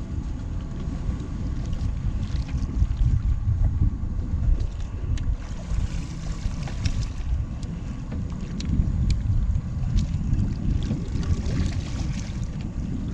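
Wind rumbling on the microphone over water sloshing and splashing against the side of a boat, with a few short knocks.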